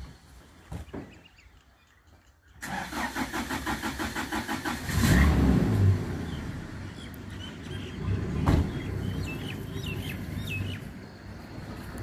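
Small pickup truck's engine cranked by the starter in quick, even pulses, catching about five seconds in with a loud rev, then running steadily as the truck pulls away. Birds chirp over it.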